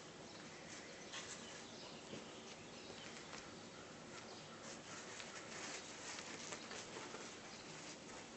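Faint irregular scuffling and rustling of Ragdoll kittens playing on a satin bedspread, over a steady hiss.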